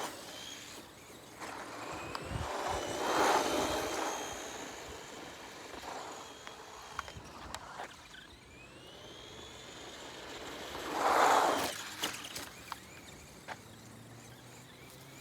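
Small electric RC car driving: its motor whines, the pitch gliding up and down as it speeds up and slows. Two louder rushes of noise come about three seconds in and again about eleven seconds in.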